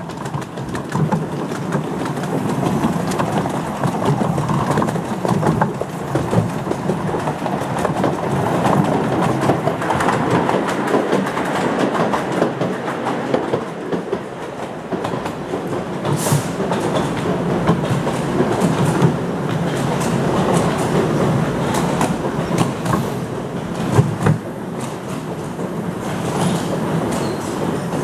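Miniature steam train running, heard from one of its passenger carriages: a steady rumble of wheels on track with rapid clickety-clack over the rail joints. A single sharp knock stands out late on.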